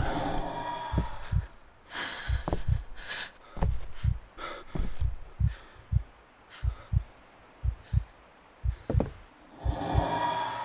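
Heartbeat sound effect: a fast, steady lub-dub of paired low thumps, with heavy breathing over it that swells near the end.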